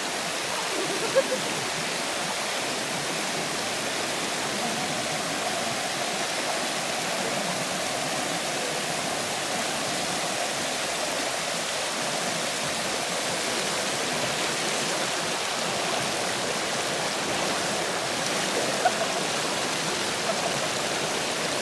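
Steady rush of flowing river water, with two brief sharp sounds, one about a second in and one near the end.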